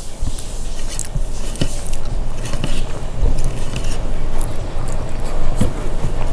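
Close-miked eating sounds: chewing and biting food, with scattered short clicks and moist mouth sounds over a steady low hum.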